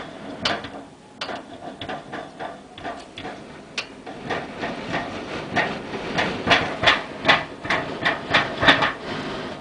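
Rapid, irregular clacking knocks over a steady hiss, sparse at first and then coming several a second and louder in the second half.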